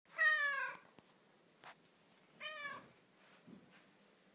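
Domestic cat meowing twice: a longer, louder meow near the start that falls slightly in pitch, then a shorter, quieter meow about halfway through.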